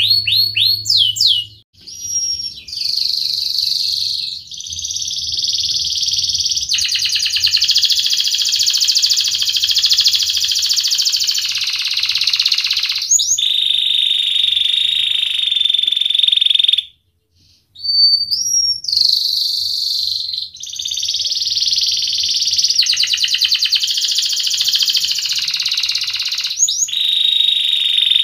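Domestic canary singing a long rolling song: fast trills and rattling rolls held for several seconds at a time, linked by short rising whistled notes, with one brief pause about 17 seconds in.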